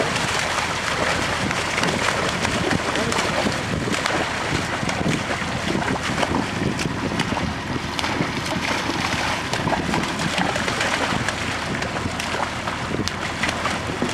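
Water and live catfish pouring out of a stocking truck's rear hatch and splashing into a lake: a steady gush and splash of water, with many small splashes.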